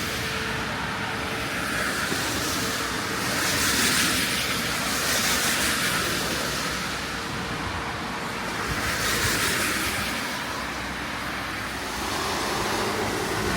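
City traffic on a rain-wet street: several vehicles pass one after another, their tyres swishing on the wet road over a steady rain hiss.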